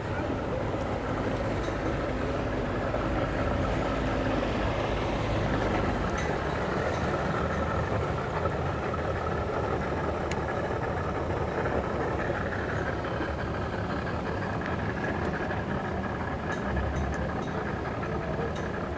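Engines idling steadily and evenly, with no revving.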